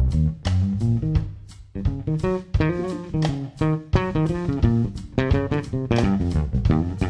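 Live instrumental band playing: electric bass, guitar and drum kit over keyboard, with a short break about one and a half seconds in before the band comes back in.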